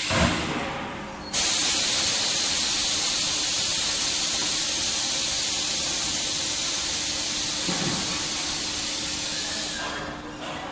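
Compressed air hissing from a pneumatic inner-tank air leak tester. A short puff of air comes at the start. About a second later a loud, steady rush of air cuts in, slowly easing off for about eight seconds before it dies away, over a constant machine hum.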